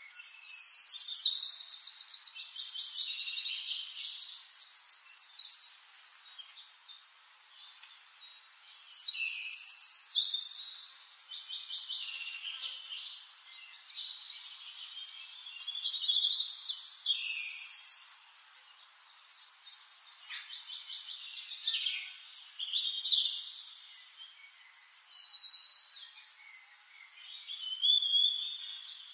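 Songbirds singing: fast trills and warbling phrases that swell and fade in waves every six seconds or so.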